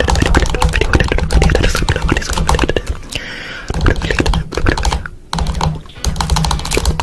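Rapid, irregular clicking of computer keyboard typing over a low steady hum, with a brief break about three seconds in.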